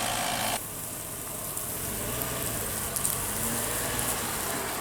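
Pickup truck engine running at idle: a faint, steady low hum under a steady hiss.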